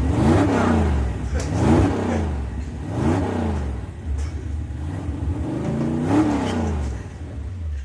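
Car engine revving up and falling back again and again, about every one and a half seconds, over a steady low hum.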